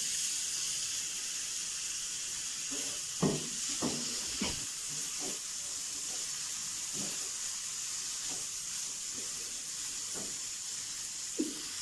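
Boiled diced potatoes sizzling with a steady hiss in hot oil and fried spices in a frying pan. A silicone spatula stirs them, with short scrapes and knocks against the pan every second or so.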